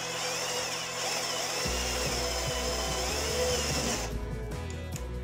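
Mikel's TAI-18 18 V cordless drill/driver running steadily as a twist bit bores a hole through a block of wood; the drill stops about four seconds in. Background music with a beat plays underneath.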